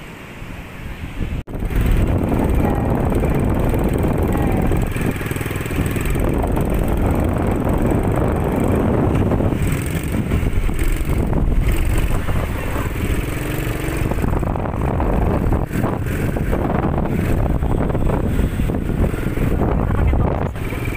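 ATV engine running as the quad bike is ridden across the sand. It cuts in abruptly about a second and a half in and stays loud and steady.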